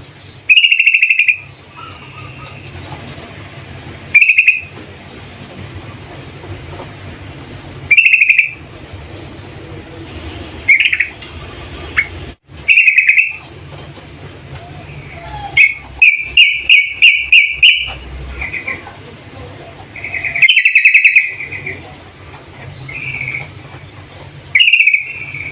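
Yellow-vented bulbul (trucukan) giving short, loud call phrases every few seconds, with a quick run of about six repeated notes in the middle.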